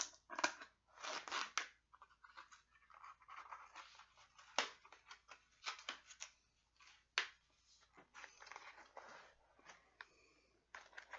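Cardboard shipping box being opened and handled: irregular scraping, tearing and rustling of cardboard and packing, with a few sharp clicks, two of them about four and a half and seven seconds in.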